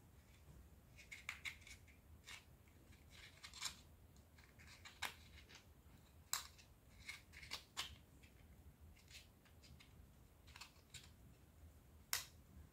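Faint, irregular small clicks and crinkles from hands handling and pressing pieces of EVA foam during gluing, about a dozen scattered light ticks over a near-silent room.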